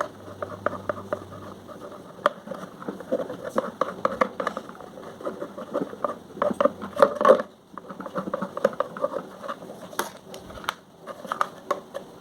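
Thin plastic bottle being cut and handled: irregular snips, clicks and crackling of the plastic, with a few sharper ticks.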